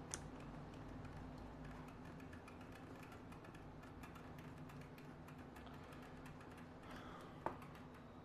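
Faint small plastic clicks and ticks of a phone holder's screw being turned and tightened on a helmet chin mount, with one sharper click near the end. A faint steady low hum runs underneath.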